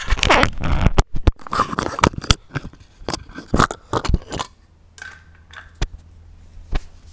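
Phone being handled and turned around, its microphone picking up a rapid run of knocks, scrapes and rubbing that eases off after about four and a half seconds to a few scattered clicks.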